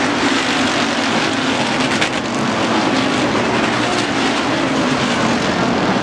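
Hobby stock race cars' engines running loud and steady at racing speed as the pack passes.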